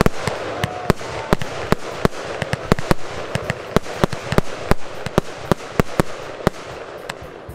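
Fireworks: shots launched one after another from the ground and bursting high, a quick string of sharp cracks and bangs, about three a second, thinning out near the end.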